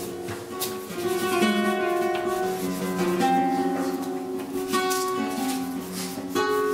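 Acoustic guitar played live: strummed chords and plucked notes ringing out, with sharp strums every second or so.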